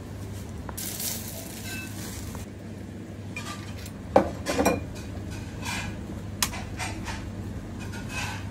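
A utensil clinking and knocking against a cooking pot as chopped herbs are stirred into simmering broth. The sharpest knock comes a little after four seconds in, with a cluster just after it and a few lighter clinks later, over a steady low hum.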